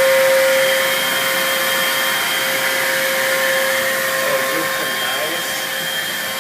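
Vacuum cleaner running steadily: a constant whooshing airflow with a steady motor whine.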